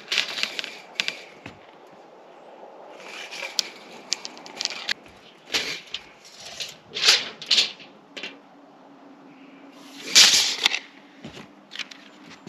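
A tape measure being handled on a camper roof: it is pulled out and reeled back with scattered clicks and rattles, along with several short scuffing swishes. The loudest swish comes near the end, and a low steady hum joins about two-thirds of the way through.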